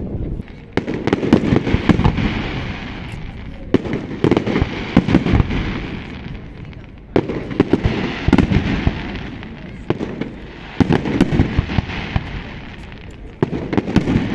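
Fireworks display: aerial shells bursting about every three and a half seconds, five in all. Each is a sharp bang followed by a few seconds of dense crackling and rumble.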